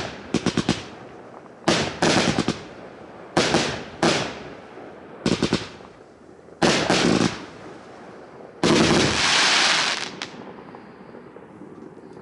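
Dragon Fireworks 2064 compound cake of 25 mm shots firing: quick volleys of sharp reports about every second and a half to two seconds. About nine seconds in comes a longer, denser salvo, after which the firing dies away.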